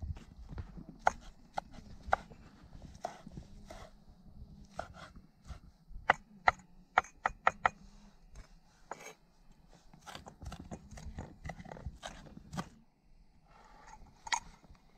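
Cleaver chopping green onions on a wooden cutting board: sharp knocks of the blade on the board, spaced irregularly, with a quick run of about four strikes a second a little past halfway.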